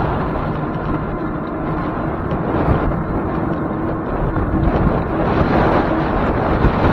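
Wind buffeting the microphone while riding along a road, a steady rumbling rush, with a faint steady hum underneath.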